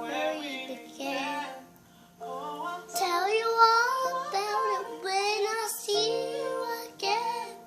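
A child singing along with recorded backing music, in phrases of a few seconds with short breaths between, over steady held notes of the accompaniment.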